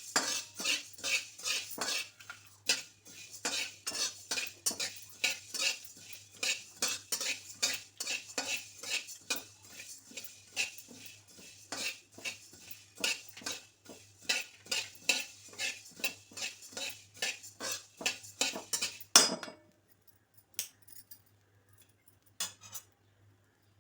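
A spoon stirring and scraping dry spices in a pan as they roast, about three even strokes a second; the stirring stops abruptly about nineteen seconds in, leaving a few light clinks.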